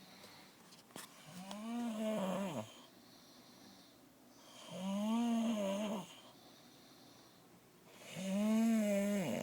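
Snoring: three drawn-out snores about three seconds apart, each carrying a tone that rises a little, holds, then drops off at the end. A short sharp click sounds about a second in.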